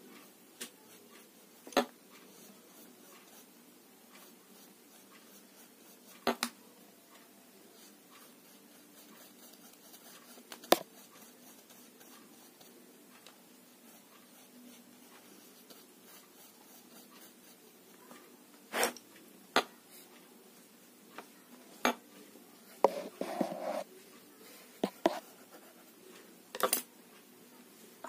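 Scattered sharp clicks and light clinks from small hard painting things handled during watercolour painting, about a dozen, with a brief rattling cluster some three quarters of the way through, over faint room hiss.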